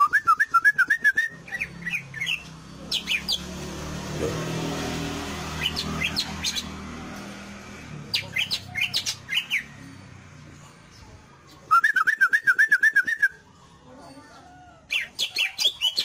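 Green leafbird (cucak ijo) singing in full song: fast runs of wavering notes at the start and again near the end, broken by sharp, high whistled notes, its song full of mimicked phrases. A low rumble swells and fades in the background through the middle.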